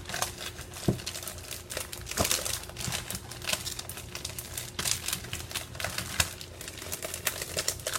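Sheets of cardstock rustling and crinkling as they are handled and pulled from a stack, in irregular bursts with a few small knocks.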